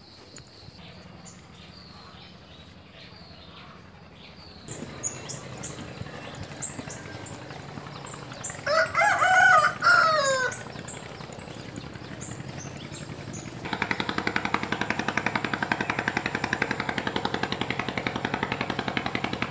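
A rooster crows once, loud, about nine seconds in, over many short high chirps from small birds. From about two-thirds of the way through, a steady, rapidly pulsing buzz takes over.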